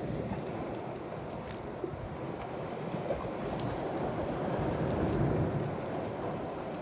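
Steady rushing of sea water washing over shoreline rocks, swelling a little about five seconds in, with a few faint clicks.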